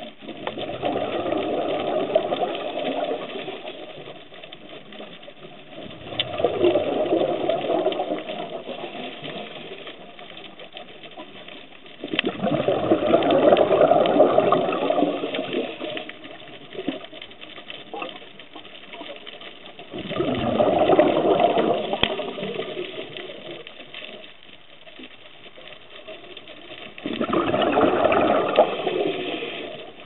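A scuba diver breathing underwater through a regulator: five long bubbling exhalations, one every six to eight seconds and each lasting three to four seconds, with quieter stretches between.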